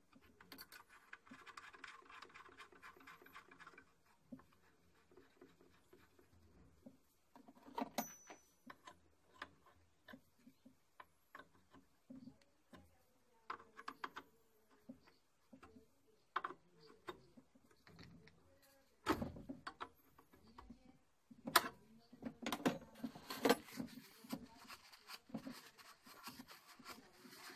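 Scattered light clicks, taps and rustles of hands handling the ignition leads and fittings of an oil burner that is switched off, with a few sharper knocks in the second half.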